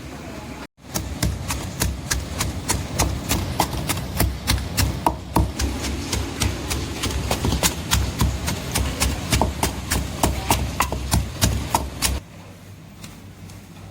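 Knife chopping on a cutting board in quick, even strokes, about three or four a second, starting about a second in and stopping abruptly near the end.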